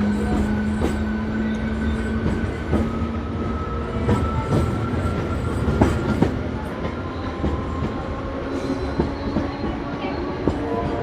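Passenger train running along the track: a continuous rumble with scattered knocks of the wheels over rail joints. A steady hum drops away about two seconds in, and from the middle on several tones slowly rise in pitch as the train gathers speed.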